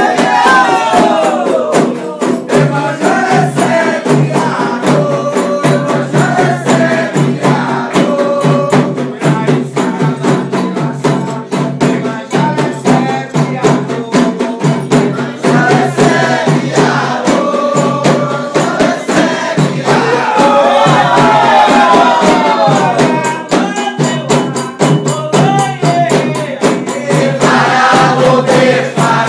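Candomblé ritual song: voices singing a chant together over fast, steady hand percussion and rattles.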